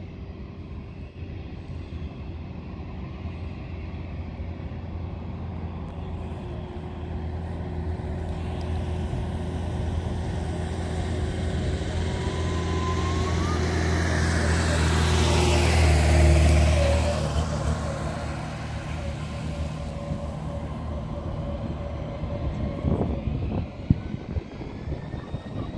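A heavy road vehicle passes close by: engine and tyre noise build to a peak about two-thirds of the way through, then fall away as its pitch drops. Near the end a faint rising whine from distant jet engines begins, as the Embraer E190's turbofans spool up.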